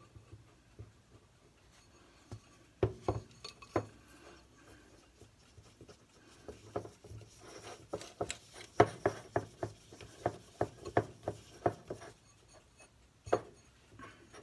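A wooden popsicle stick and fingers working a thick baby-powder-and-hand-lotion slime in a small glass bowl, the stick clicking against the glass. A few clicks come a few seconds in, then a quick run of taps in the second half.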